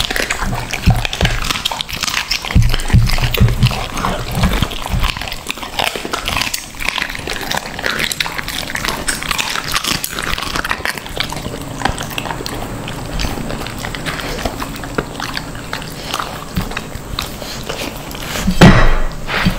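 Pet dogs making noise, with many scuffling clicks and scrapes; a louder noise comes near the end.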